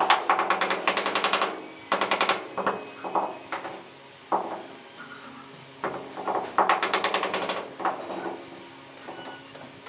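Mallet tapping the face of a glazed ceramic wall tile in quick runs of taps, bedding it into the mortar behind it. The longest runs are at the start and about seven seconds in, with shorter ones between.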